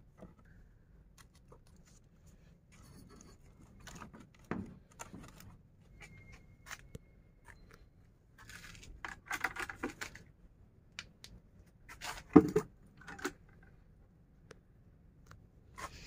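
Plastic plant pots and trays being handled: scattered clicks and rustles, a busier patch of rustling about nine seconds in and a louder knock about twelve seconds in.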